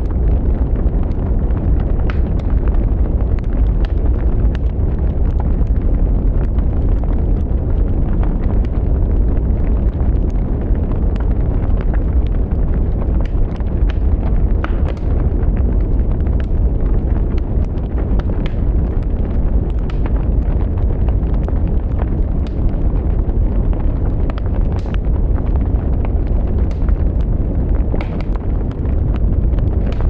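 Wood fire of burning sticks crackling, with frequent sharp pops scattered over a loud, steady low noise of the flames.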